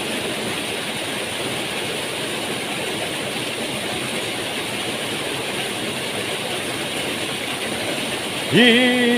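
Small mountain stream rushing over a rocky cascade: a steady, even noise of falling water. A man's voice breaks in near the end.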